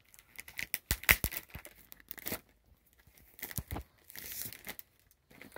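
Clear plastic comic-book sleeve crinkling and crackling as it is opened and the comic taken out: a quick run of sharp crackles over the first couple of seconds, a few more later, then a short rustle.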